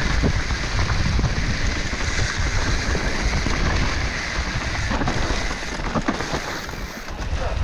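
Wind rushing over the microphone and tyres rolling on a dirt trail as a mountain bike descends at speed, with a few light knocks from the bike.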